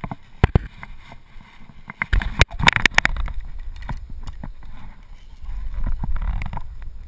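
Handling noise on a body-worn action camera: sharp knocks and clicks of harness gear and a carabiner, clustered about two to three seconds in, with low rumbling bumps against the microphone.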